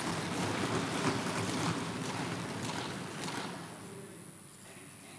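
Crowd noise from many members in the assembly hall, a dense rustling din that fades away about three and a half seconds in.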